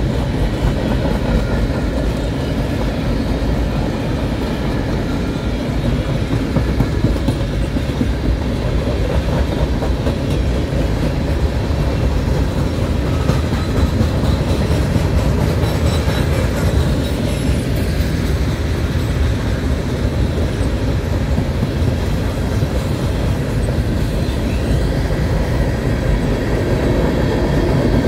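Freight cars of a long mixed freight train rolling past: a steady, loud rumble of steel wheels on rail.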